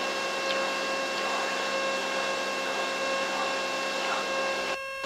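Mooney 231's turbocharged six-cylinder engine and propeller droning steadily at climb power inside the cockpit, with a steady hum of several fixed tones. The sound cuts out briefly near the end.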